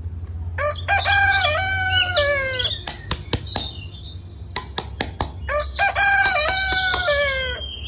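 Rooster crowing twice, each crow about two seconds long and falling in pitch at the end, with sharp clicks between the crows.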